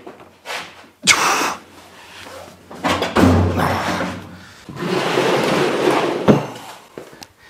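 Old metal drawer cabinet being handled: a slam about a second in, then longer stretches of scraping noise, and a sharp knock near the end.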